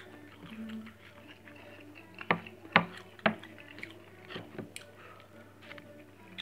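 Close eating sounds of a man chewing grilled fish and rice eaten by hand, with wet mouth clicks and smacks. Three sharp clicks a little past the middle are the loudest.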